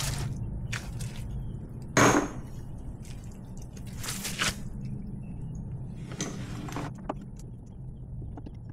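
Old engine oil running out of an outboard motor's drain hole into a one-gallon jug, a steady low pour, with a few short knocks and clunks of the jug and tools being handled; the loudest knock comes about two seconds in.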